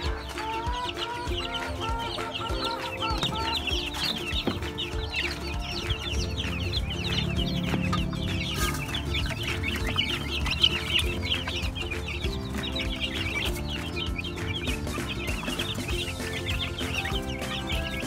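A brood of broiler chicks peeping nonstop, many short high chirps overlapping, over background music.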